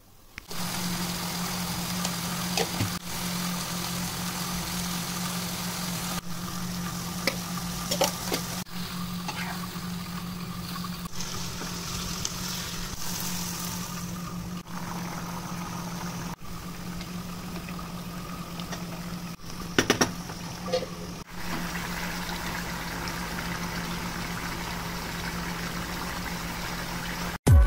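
Chicken curry simmering and sizzling in a kadai on a gas stove, over a steady low hum, with a few clinks of the steel lid and utensils.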